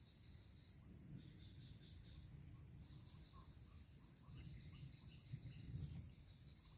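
Steady, faint high-pitched drone of a chorus of crickets and other insects, with a few short chirps in the middle.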